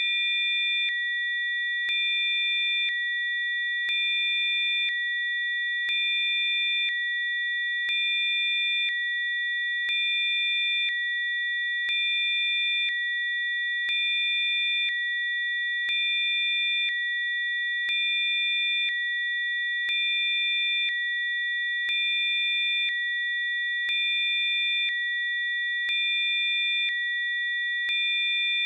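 Electronically generated Rife frequency tones: several steady, high-pitched pure sine tones sounding together. A faint lower tone and a slight rise in level switch on and off about once a second.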